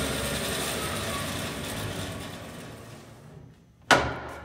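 Bandsaw running, then winding down and fading to quiet over about three seconds, followed near the end by a single sharp knock.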